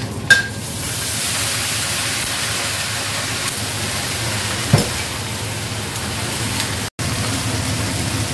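Shredded cabbage stir-frying in hot oil in a stainless steel wok: a steady sizzle sets in about a second in, after a few sharp clinks of metal against the wok as the cabbage goes in. A single spatula knock on the wok comes about halfway through.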